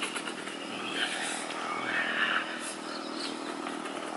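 An engine running steadily, heard as a low, even hum.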